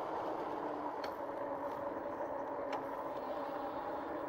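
2018 RadRover fat-tyre electric bike cruising at about 16–17 mph: a steady hum from its hub motor and tyres, with a tone that drops slightly in pitch about a second in as the bike eases off. Two light clicks come about one and three seconds in.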